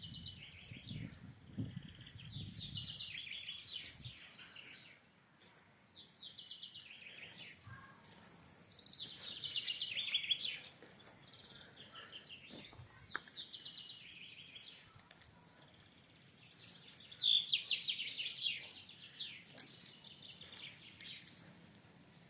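A songbird singing: repeated songs of rapid, descending trilled notes, each lasting about two seconds, with short high call notes between them. A low rumble sounds under the first few seconds.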